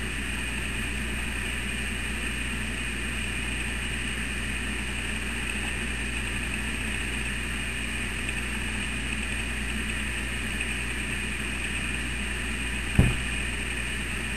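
A steady, even mechanical hum with no rhythm or change in pitch, and one sharp click near the end.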